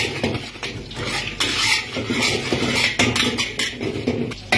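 A metal spatula scraping and clanking against a large wok as fried rice is stirred and tossed: an irregular run of scrapes and knocks, with one sharp knock near the end.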